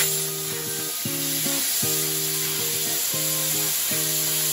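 HZXVOGEN HVM270 plasma cutter cutting through a metal strip: a steady, loud hiss from the torch's arc, over background music.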